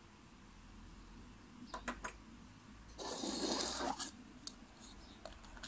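Handling of a metal spoon and a 3D-printed plastic cup and lid: a few sharp clicks of the spoon, then about a second of rasping scraping, then light clicks near the end.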